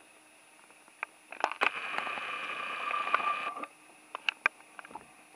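Camcorder zoom motor whining steadily for about two seconds while the lens zooms in, starting and stopping abruptly, with small handling clicks around it.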